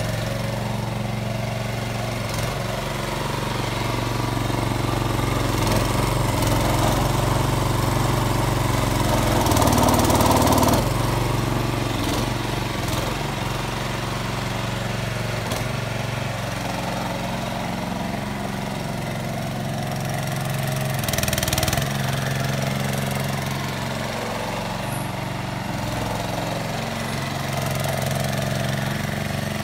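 Single-cylinder 6.5-horsepower petrol engine of a homemade mini excavator running steadily while driving a car power-steering hydraulic pump as the boom, bucket and swing are worked. The sound swells briefly about ten seconds in and again around twenty-one seconds.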